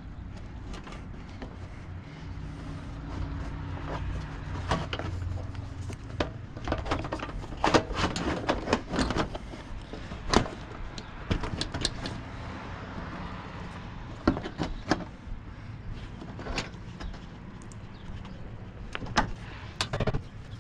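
Hard plastic front-end shroud panel being pushed and pressed into place by hand, with irregular clicks and knocks as its push-in clips and tabs snap home, over a faint steady low hum.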